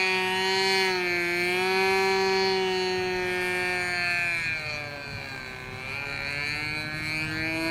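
OS 55AX two-stroke glow engine of a U Can Do 46 RC aerobatic plane running in flight, its note wavering. About five seconds in the pitch falls and the sound dips, then the pitch rises again near the end.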